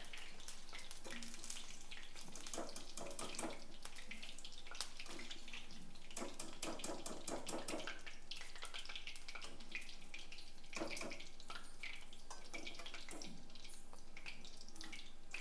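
Food frying in hot oil in a pan: a steady sizzle with many irregular small crackles and pops.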